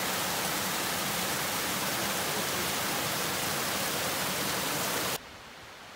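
Small waterfall running under and beside a curtain of ice, a steady rushing hiss of falling water that cuts off suddenly about five seconds in, leaving only a faint hiss.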